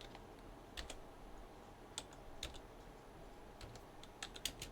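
Faint keystrokes on a computer keyboard, a few scattered clicks and then a quicker run of them near the end, as a volume label is typed in.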